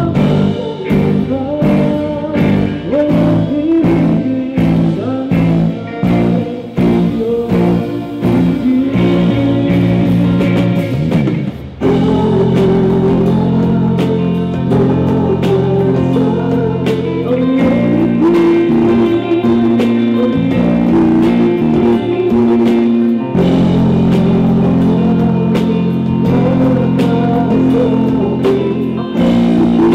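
A live rock band playing a song: electric guitar, keyboard and drums with a male lead vocal. After a short dip about twelve seconds in, the band comes in fuller and more sustained.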